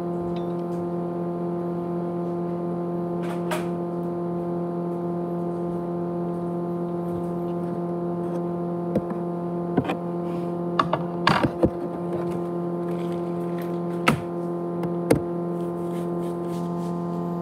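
A 500 GB USB hard drive hums steadily as it spins, with a few sharp clicks scattered through the middle.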